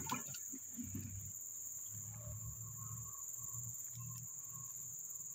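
Steady high-pitched drone of tropical forest insects, with a fainter, lower insect note joining about two seconds in. A brief clatter right at the start.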